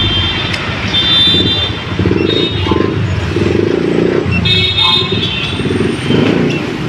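Motor vehicle engine running steadily, with several short high-pitched tones sounding over it.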